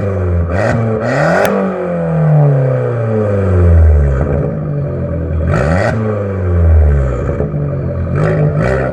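Fiat Grande Punto Sport 1.4 T-Jet's turbocharged four-cylinder engine through a straight-pipe exhaust, revved hard twice and allowed to fall back slowly each time, then blipped briefly near the end. A sharp crack sounds at the top of the first rev, about one and a half seconds in.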